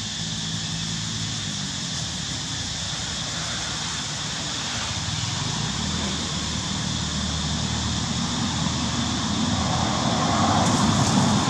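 Steady engine drone in the background that grows louder toward the end, over a constant high hum.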